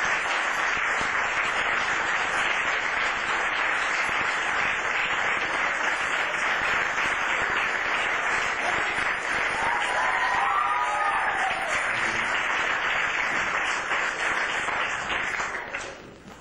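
Audience and performers applauding steadily, with a voice briefly heard over the clapping about ten seconds in; the applause dies away near the end.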